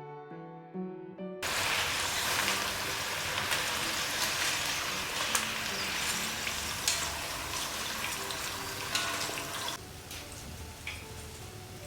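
Sweet potato slices deep-frying in hot oil: a loud, steady sizzle with scattered sharp crackles that starts abruptly after a short piano tune, then turns softer about two seconds before the end.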